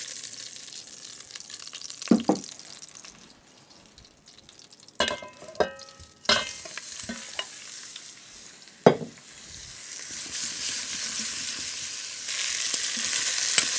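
Hot oil sizzling in an enamelled cast-iron Dutch oven as oxtail pieces are browned. Metal tongs clink and knock against the pot and a glass bowl, the loudest knock about nine seconds in. The sizzle dies down early on, then builds again and grows louder near the end as more flour-dredged oxtail goes into the oil.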